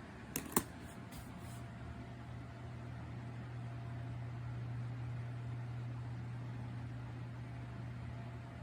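Two sharp clicks, then a small USB desk fan running with a steady low hum that builds over the first few seconds and holds.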